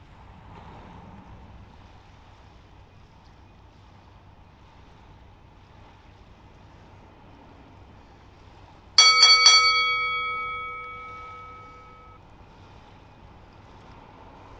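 A bell-like chime sound effect, a quick run of about four strikes about nine seconds in, ringing out and fading over about three seconds. Under it, faint steady wind and water noise.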